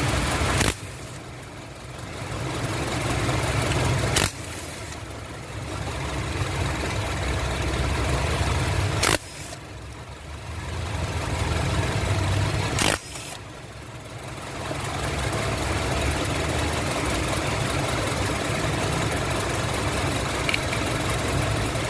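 Honda CR-V engine idling roughly with one cylinder misfiring, a fault traced to the number 2 ignition coil. Four sharp clicks break in, each followed by a brief dip in the engine sound that builds back up.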